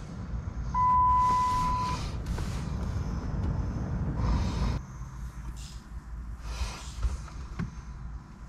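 A single steady electronic beep, a little over a second long, about a second in, amid short rustling and handling noises.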